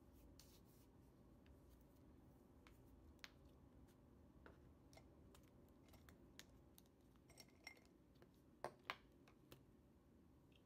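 Near-silent room tone with a few faint, scattered clicks and taps as a ballpoint pen and ring-binder pages are handled on a desk; two sharper taps close together near the end.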